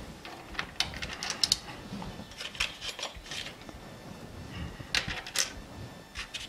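Steel T-nuts being set and slid into the T-slots of a lathe's steel cross slide: a run of small metallic clicks and scrapes, the loudest two about five seconds in.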